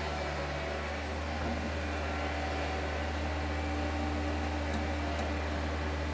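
Loader engine running at a steady idle: an even, low drone with a few faint light clicks about two-thirds of the way in.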